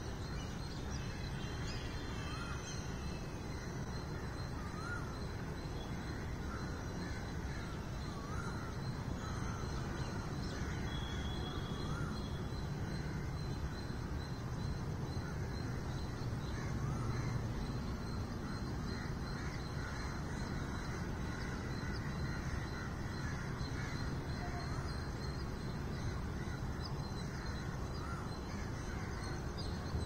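Birds calling again and again over a steady low hum of city traffic. A faint steady high tone runs along underneath.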